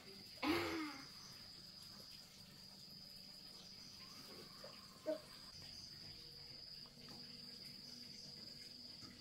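Faint, steady high-pitched chirring of crickets throughout. About half a second in there is a short, loud cry that falls in pitch, and around five seconds in a brief squeak.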